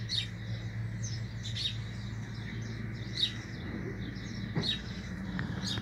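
A small bird chirping outdoors: short, high, quickly falling chirps repeated about once or twice a second, over a steady low hum.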